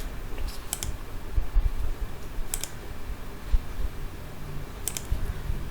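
A few sharp clicks of a computer keyboard being used, spread a second or two apart, over low thumps and room rumble.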